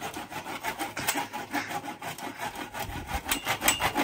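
A hand saw sawing through a BMX tyre in quick, even back-and-forth strokes, about five a second.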